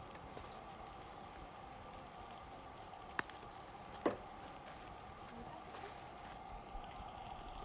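Meat sizzling steadily in a hot pan, with two short clicks about three and four seconds in.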